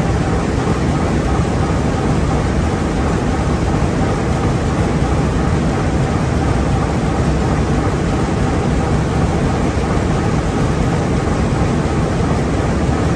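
Fairbanks-Morse 240 hp stationary diesel power-plant engines running at a steady speed, a loud, even mechanical din that does not change.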